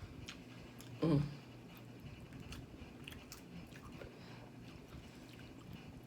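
Close-up mukbang eating sounds: chewing seafood with scattered small clicks and crackles, and a short voice sound, such as an 'mm', about a second in.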